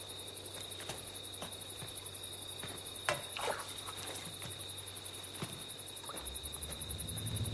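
Crickets chirping in a fast, even pulsing trill, with a low music tone coming in near the end.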